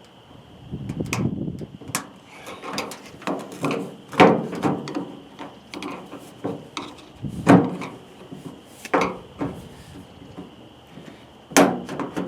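A thin metal prying tool scraping, clicking and knocking against a plastic part and the sheet metal of a pickup's tailgate, in irregular taps with scraping between them; the loudest knocks come about four, seven and a half and eleven and a half seconds in.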